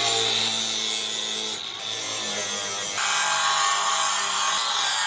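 Angle grinder running at full speed, its disc grinding steel down to bare metal to clear rust before welding. The grinding sound shifts briefly about a second and a half in and changes again about three seconds in as the disc bears on the work.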